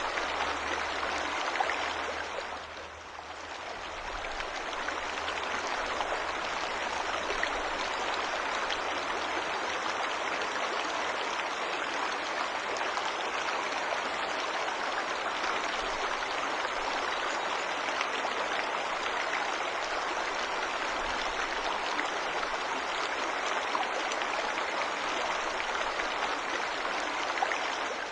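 Waterfall water rushing in a steady, even noise that dips briefly about three seconds in.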